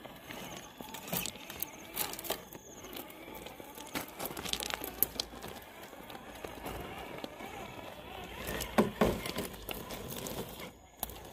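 Loose rocks and gravel crunching and clattering under the tyres of a Traxxas Chevrolet K5 Blazer RC crawler, with irregular clicks and knocks; the loudest cluster comes about nine seconds in.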